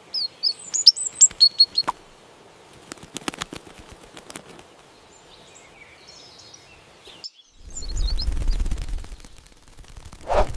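Morning birdsong: quick, high chirps in the first two seconds, then a rapid run of sharp clicks and fainter calls. A low rumble comes in about three-quarters of the way through, with a louder burst near the end.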